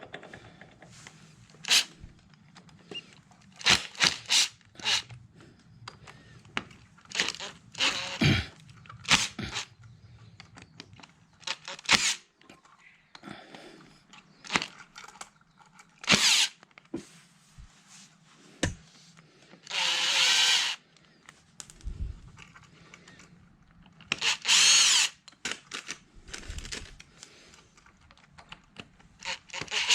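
Handheld electric drill-driver run in two short bursts of about a second and a half, amid a string of sharp metallic clicks and knocks from tools being handled on the engine.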